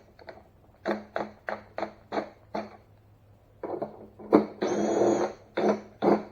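Cordless quarter-inch impact driver pulsed in about six short trigger bursts while running a fender bolt, then run in one longer burst a little under five seconds in, with sharp metal knocks around it.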